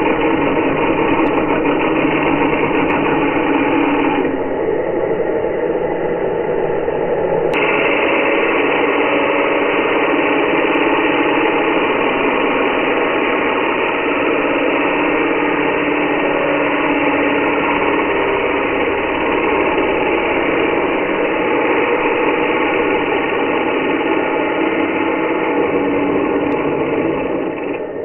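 Angle grinder with a cutting disc cutting through a clamped metal bar: a steady grinding noise over the motor's hum. The higher part of the grinding drops out for a few seconds about four seconds in, then returns. Near the end the sound falls away as the disc breaks through the bar.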